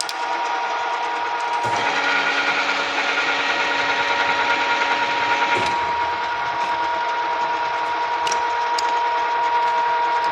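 Okuma & Howa STM-2V vertical milling machine running, a steady gear whine with a few light clicks.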